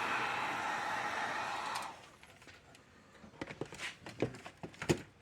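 Heat gun blowing with a steady rush of air, switched off about two seconds in; then a few light clicks and taps from small parts being handled.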